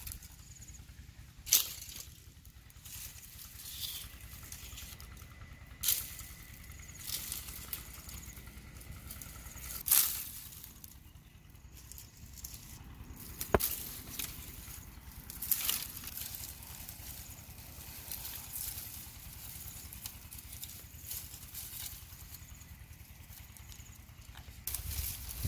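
Dry branches and twigs snapping and rustling as they are broken off and gathered for firewood, with a sharp crack every few seconds over a steady rustle of brush.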